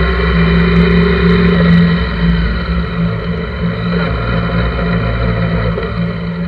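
Honda GL1100 Gold Wing's flat-four engine running steadily, with wind and road noise on a handlebar-mounted camera. It gets gradually quieter from about two seconds in as the sidecar rig slows.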